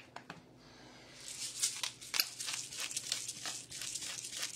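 Salt being shaken from a container into a blender jar of potatoes: a gritty, crackling rattle of quick shakes that starts about a second in.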